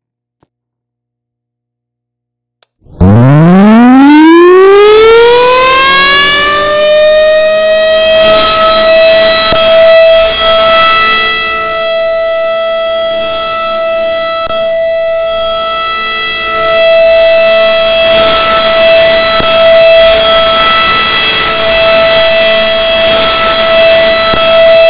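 Federal Signal 2001 electromechanical warning siren starting up. After about three seconds of silence it winds up quickly from a low pitch to a steady high wail over some five seconds, then holds that pitch. Its loudness dips for a few seconds midway and swells back.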